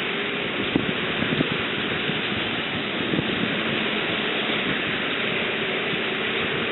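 Steady, unbroken rushing hiss of stormy weather outdoors: wind and rain noise on the microphone.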